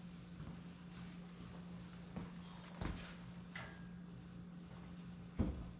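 A few scattered knocks and clunks of tools or parts being handled, the loudest about five seconds in, over a steady low hum.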